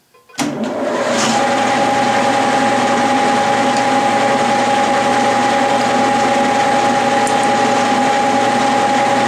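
Clausing variable-speed lathe switched on with a click and spinning up over about a second, then running steadily at about 800 RPM, a steady whine above the motor hum.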